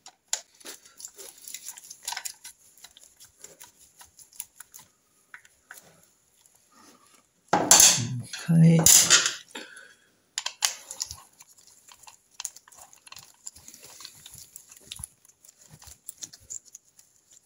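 Light metallic clicks and clinks of a screwdriver working the fixing screws of an aluminium gearbox inner casing, scattered and irregular, with two louder bursts of sound about eight and nine seconds in.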